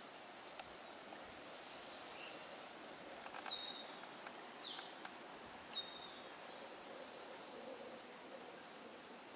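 Riverside ambience: a steady soft wash of flowing water with several birds calling in short, high whistled notes, one of them a quick falling note about halfway through. A few faint clicks and a light tap come in the middle.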